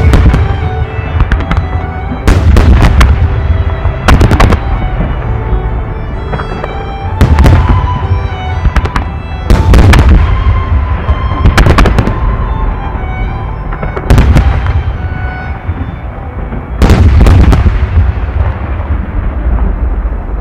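Aerial firework shells bursting in the sky: loud booms in clusters every two to three seconds, each followed by a fading rumble and crackle. Music plays underneath throughout.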